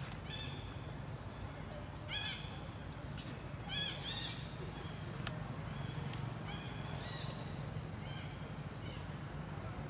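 Baby long-tailed macaque giving short, high-pitched squealing calls that rise and fall, several in a row, with a second or so between them, over a steady low hum.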